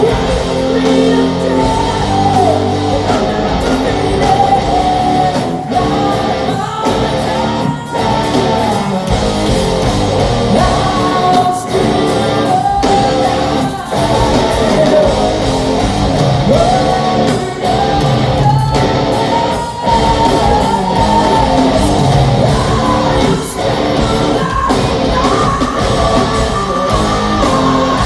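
Hard rock band playing live in a large hall: distorted guitars and drums under a sung lead vocal line that glides up and down, loud and continuous.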